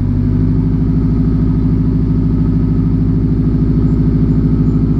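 2006 Subaru WRX's turbocharged flat-four engine idling steadily just after start-up, with the muffler removed so the exhaust exits a bare straight pipe. The idle is loud, with a fast, even pulse.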